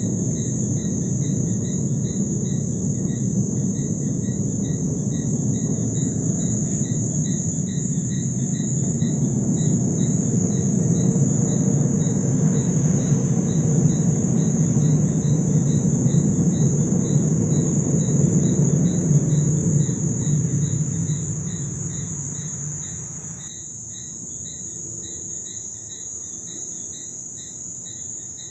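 A low, loud rumble from the sky, the strange sky noise people reported, that swells and then fades about three-quarters of the way through, over crickets chirping steadily.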